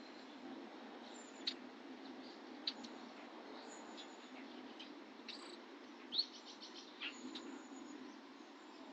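Songbirds chirping: scattered short, high calls over a steady low hiss. The loudest call comes about six seconds in and is followed by a quick trill of ticks.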